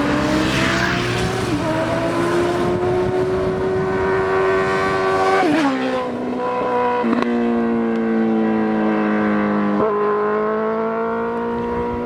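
2007 Suzuki GSX-R 1000's inline-four engine running loud under way: the note climbs with the revs, then drops abruptly several times as it changes up through the gears.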